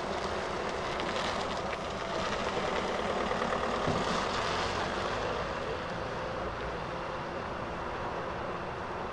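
DE 520 diesel-electric locomotive running as it slowly propels two coaches over the station pointwork. Its engine hum is steady, with wheel-and-rail noise that swells a couple of seconds in, then eases.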